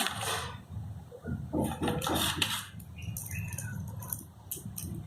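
Rustling and light clicks of small phone accessories and their packaging being handled.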